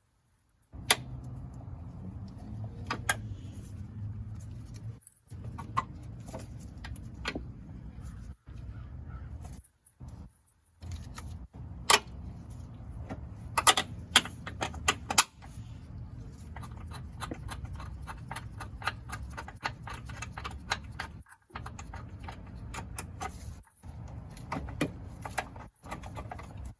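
Metal clinks and sharp clicks of hand tools, bolts and a nut as a suspension control arm is bolted in, over a steady low hum. The sound cuts off abruptly to silence several times.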